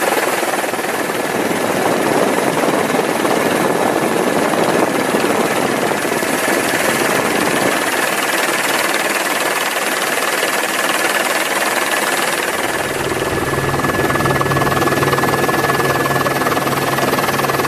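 Steady helicopter engine and rotor noise, with a thin high whine running through it; a deeper hum joins about twelve seconds in.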